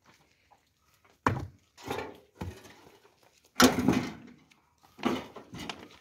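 Wood being handled, giving about five separate knocks and thumps. The loudest is a little past halfway.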